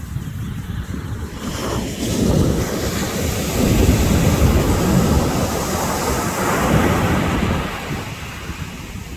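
Ocean surf on a beach: a wave breaks about a second and a half in and washes up, swelling for several seconds and fading near the end, over a low rumble of wind on the microphone.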